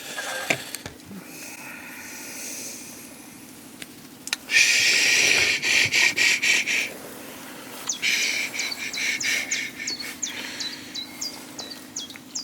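Great tit giving harsh, rasping distress calls in two loud bursts, the second one mixed with quick high chirps; the bird is caught with its feet tangled in fur.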